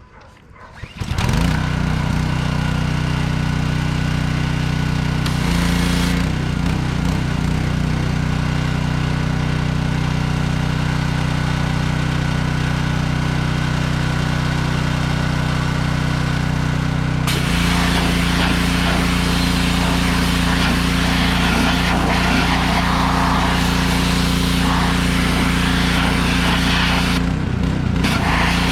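Small-engine pressure washer running steadily with the hiss of its spray, fed through a sand-blasting attachment. It comes on abruptly about a second in, and its note shifts briefly around six seconds and again around seventeen seconds.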